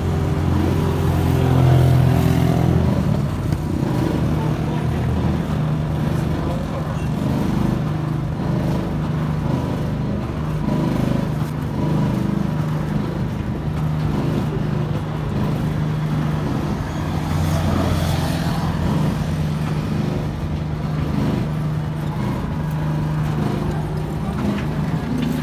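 Roller ice cream machine running, its motor humming steadily as it turns the frozen drum.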